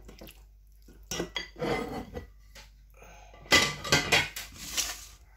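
Raw chicken drumsticks going into a stainless steel mixing bowl of buttermilk, the metal bowl clattering and ringing against the counter and plate. It comes in two bursts of knocks, one about a second in and a louder one about three and a half seconds in.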